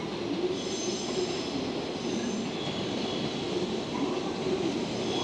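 A JR DD51 diesel-hydraulic locomotive hauling cars as it approaches, its engines running with a steady low drone. A thin, high squeal from the wheels sits on top.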